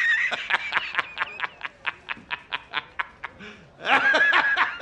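High-pitched cackling laughter: a held squeal, then a fast run of short cackles, about six a second, and another high squeal near the end.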